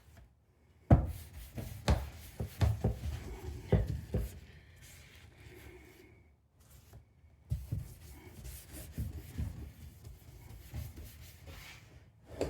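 Polishing compound being scrubbed by hand into a plastic headlight lens: irregular rubbing strokes with short knocks, the sharpest about a second in, and a quieter stretch in the middle.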